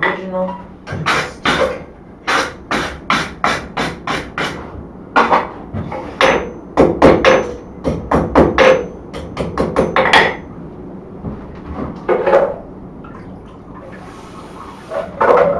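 Blacksmith's hand hammer striking hot steel on an anvil. Two runs of quick blows come at about two to three a second, some leaving a thin high ring, then a couple of single strikes near the end.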